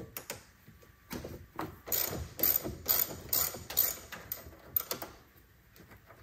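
Clicks and clatter of a 10 mm wrench working a car battery's terminal clamp as the terminals are being disconnected, with a quick run of loud knocks about two to four seconds in.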